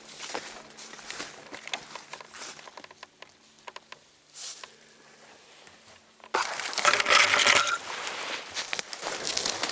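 Footsteps crunching on a dry forest floor of pine needles, leaves and twigs, with a quieter pause in the middle. About six seconds in, a much louder dense crackling and snapping of dry brush and branches as the walkers step over fallen tree debris.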